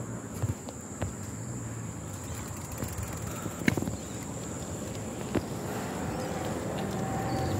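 Bicycle being ridden over pavement: steady rolling noise with a few scattered clicks and knocks, the sharpest a little under four seconds in.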